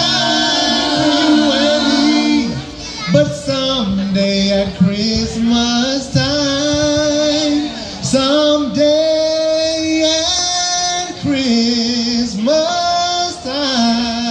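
Vocal group of men's and women's voices singing a song in harmony through stage loudspeakers, holding long chords with short breaks between phrases.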